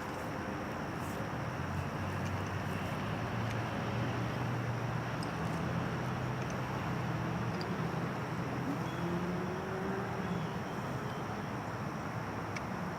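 A low, steady engine hum over outdoor background noise, with a few faint ticks.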